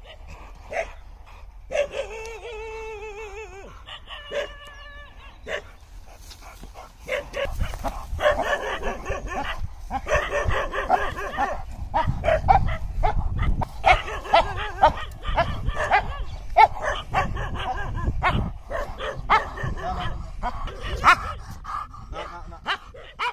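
An American Bully straining on its leash, whining with a wavering pitch a couple of seconds in, then barking over and over from about seven seconds on.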